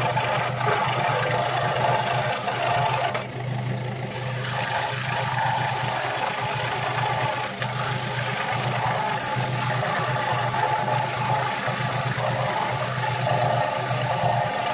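Scroll saw running with a steady low hum, its reciprocating blade cutting through a wooden board. The higher cutting noise varies as the wood is fed and dips briefly about three seconds in.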